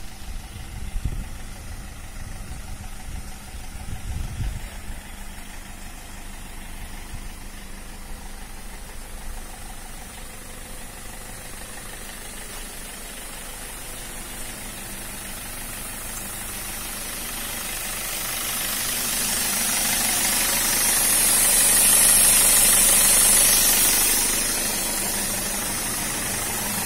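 Car engine idling steadily during an HHO engine carbon cleaning, with a few low thumps in the first seconds. A hiss builds past the middle, is loudest a few seconds before the end, then eases.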